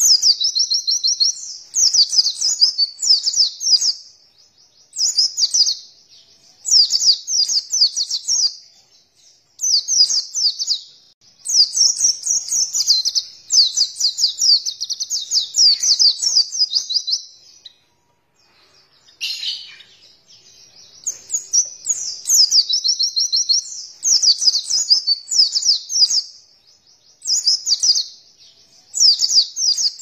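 White-eye (pleci) singing in fast, high twittering phrases of one to three seconds, with short pauses between them and a longer pause about two-thirds of the way through.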